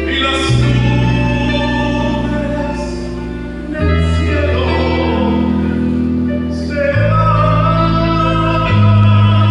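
A Christian worship song (alabanza) with held sung notes over sustained instrumental chords and bass that change every few seconds.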